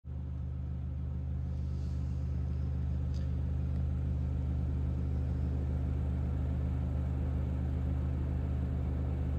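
Car engine running at a steady speed: a low, even hum with no revving.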